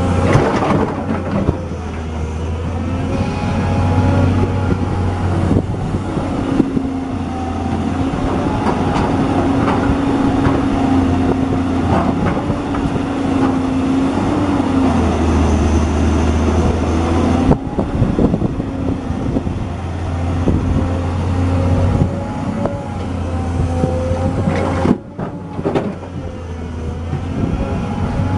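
Volvo EC210B crawler excavator's diesel engine running steadily under load, with a hydraulic whine that shifts in pitch as the boom, arm and bucket move. A few sharp knocks come through, and one drops out briefly near the end.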